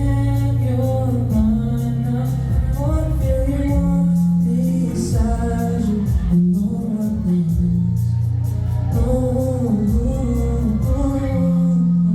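Live Korean R&B ballad played through a concert sound system: a male singer's voice over a band with a sustained bass line and a steady drum beat.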